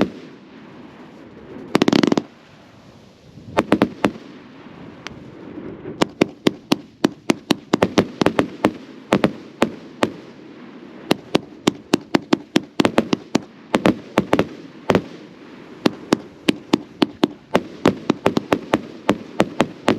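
Consumer fireworks going off: a couple of heavy booms in the first two seconds, then from about four seconds in a rapid, uneven string of sharp cracks and bangs, several a second.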